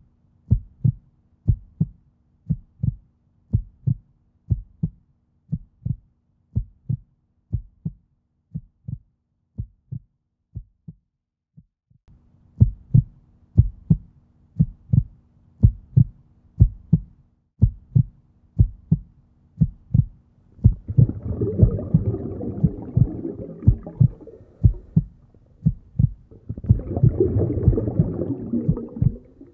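Heartbeat-like sound effect: steady low thumps about two a second, pausing briefly about eleven seconds in, over a faint hum. Two stretches of rushing noise join the thumps in the second half.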